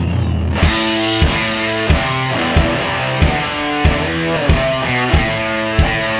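Rock music with guitar. Held low notes give way about half a second in to a steady drum beat, about three beats every two seconds.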